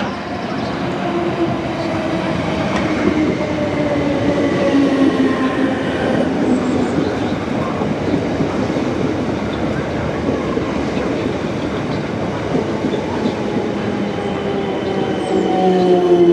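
South Western Railway electric multiple-unit trains, a Class 455 and then a Class 707, running along the platform with wheel-on-rail noise. Their motor whines fall in pitch in the first six seconds and again near the end.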